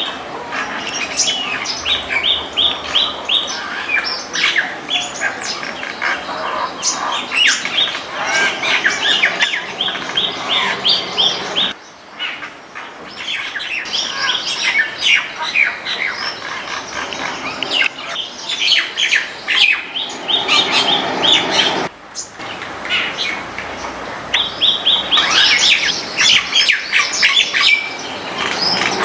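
Many small birds chirping and calling at once: a dense, overlapping chatter of short high chirps and squawks that breaks off abruptly twice, about twelve and twenty-two seconds in.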